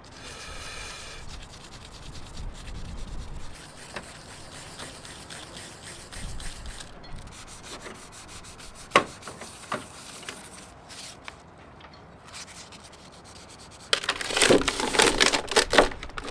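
Rubbing by hand on a boat hull's painted topsides, a steady scratchy sound that grows much louder and more vigorous for the last couple of seconds.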